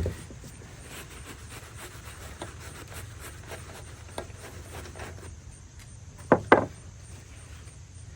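Tools and suspension parts handled during a wheel-hub teardown: scattered light clicks and rubbing, a sharp knock at the start, and two louder knocks in quick succession about six seconds in.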